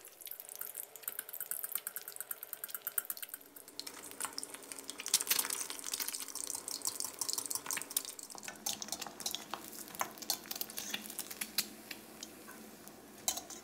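An egg deep-frying in hot oil in a wok, a dense crackling sizzle of many small pops as it crisps, with a few louder clicks and scrapes of a metal spatula against the wok.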